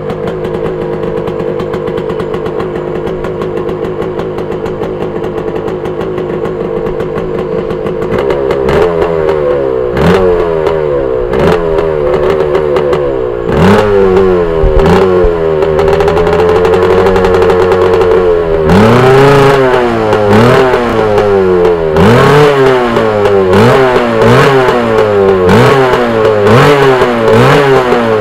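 Early-1980s Yamaha YZ250's water-cooled single-cylinder two-stroke engine idling steadily, then from about eight seconds in revved again and again in short blips, each rising and dropping back, with one longer held rev about halfway through.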